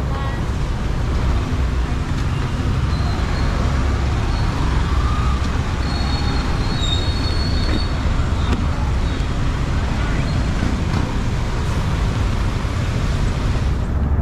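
Steady road and traffic noise heard from a moving motorcycle, dominated by a heavy low rumble, with a brief faint high tone about six seconds in.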